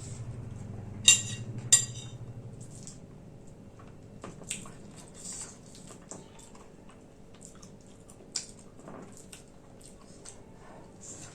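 A metal utensil strikes metal dishware twice in quick succession with ringing clinks about a second in, followed by quieter scrapes and light clicks of utensils against the dish.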